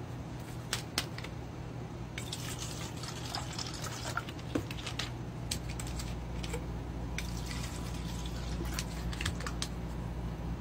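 Plastic water bottles being handled and their screw caps twisted, giving scattered small clicks and crinkles of plastic over a steady low hum.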